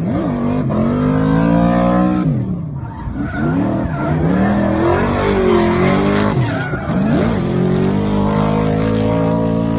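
Drift car's engine held at high revs, climbing in pitch over the first two seconds, dipping and surging through the middle, then holding steady near the end. Under it runs the hiss of the tyres spinning and sliding as the car drifts.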